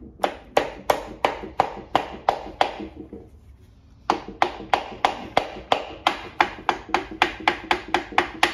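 Piston being knocked down through a ring compressor into a Holden Grey motor cylinder bore with the end of a hammer handle: a run of light, sharp taps about three a second, each ringing briefly, with a pause of about a second before the tapping picks up again.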